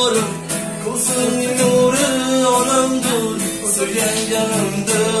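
A man singing a song to his own strummed acoustic guitar accompaniment.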